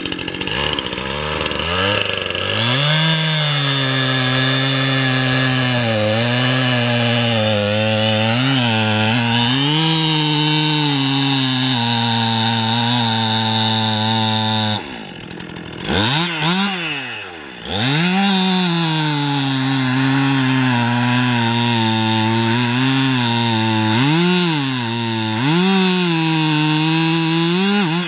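Stihl MS261C 50cc two-stroke chainsaw at high revs, cutting through a thick log. The engine note dips again and again as the chain loads up in the wood. It drops away briefly about halfway through, then revs back up and keeps cutting, and it falls off right at the end.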